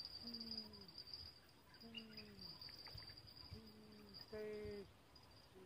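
Crickets chirring steadily at a high pitch in the riverside vegetation. Four short, low hums come over it, each holding a note and then sagging in pitch.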